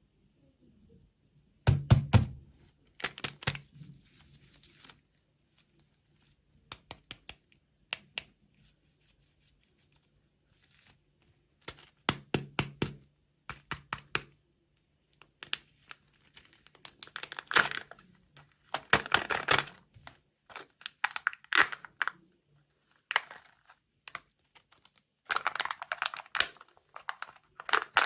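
Close-up eating sounds of candy and desserts: crisp crunching and crackling bites, with tearing and crinkling in short irregular bursts separated by pauses.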